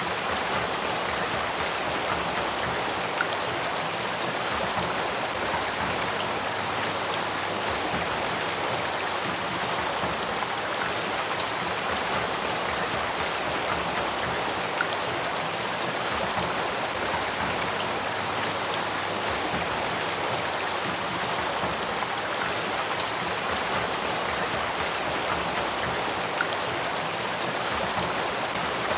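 Spring-fed headwater stream flowing: a steady, even rush of running water.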